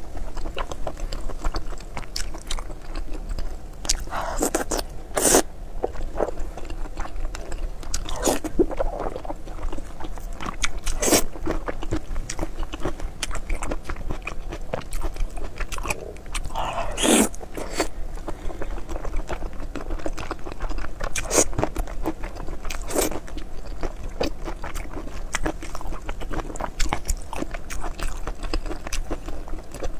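Close-miked eating of soft, sticky braised pork belly (hong shao rou): biting and chewing with irregular wet mouth clicks, and a few louder bites now and then.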